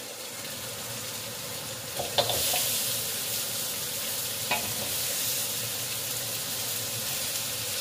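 Food sizzling in hot oil in a wok. About two seconds in, the sizzle grows louder as pieces of eggplant, tofu and pumpkin are dropped into the frying spice paste, with a couple of short clicks.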